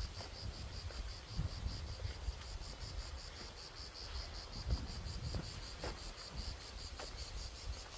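Crickets chirping in a steady, even pulse of about five chirps a second, with a few faint knocks underneath.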